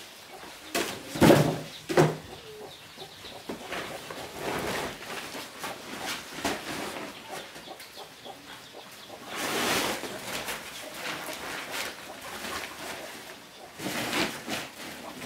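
Chickens clucking, among irregular short louder sounds; the loudest come about a second and two seconds in.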